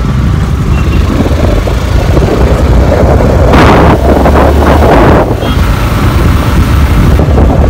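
Wind buffeting the microphone on a moving motorcycle, a heavy low rumble over road noise. A louder rushing stretch runs from about three and a half to five seconds in.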